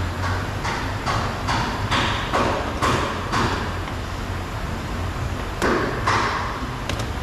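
A series of short plastic clicks and knocks from handling a loose car door trim panel and unplugging its wiring connectors. There are about eight quick clicks in the first few seconds, then a pause and a few more near the end.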